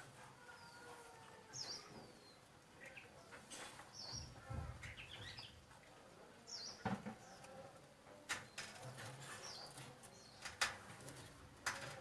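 Small birds giving short, high chirps that sweep downward, one every second or two, with scattered sharp clicks and taps between them.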